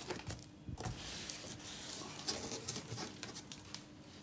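Cardboard box flaps being opened and folded back, making a scraping rustle with a few light clicks.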